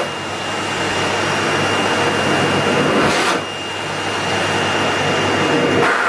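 Henry tub vacuum cleaner running: a steady rush of air with a thin, high motor whine over it. The level dips a little twice, just after the start and about three seconds in.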